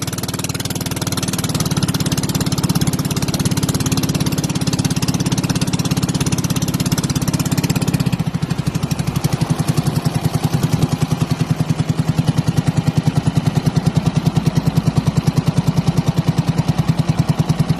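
Small engine of a motorized bangka boat running steadily under way. About halfway through, its note changes to a strong, even throbbing.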